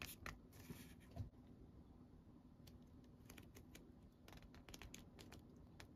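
Near silence with faint paper rustles and a few light clicks as small sheets of paper are handled and turned over.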